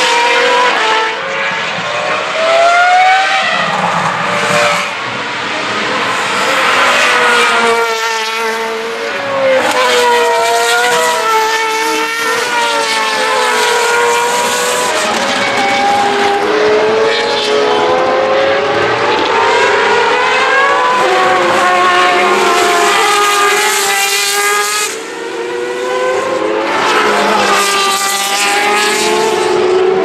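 Open-wheel BOSS GP racing cars (ex-Formula 1, GP2 and Auto GP single-seaters) at race speed, their engines revving high and dropping through gear changes as they pass one after another. About halfway through, a car spins with its tyres squealing.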